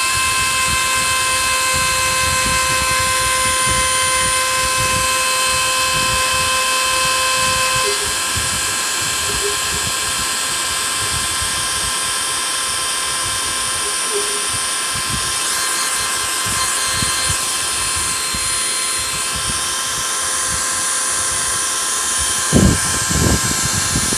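CNC router spindle whining steadily as its small bit mills isolation tracks into a copper-clad circuit board. One tone in the whine drops out about eight seconds in, and two dull knocks come near the end.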